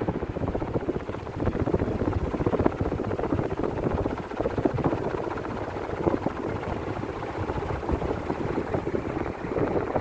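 National F560A1 56-inch industrial ceiling fans running, a steady rough rush of moving air that grows louder about a second and a half in. The fans run smoothly on freshly greased bearings.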